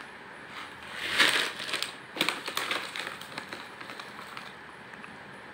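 Plastic snack packets and a plastic carrier bag rustling and crinkling as they are handled. The rustle is loudest about a second in, with a few sharp crackles, then fades to light crackling.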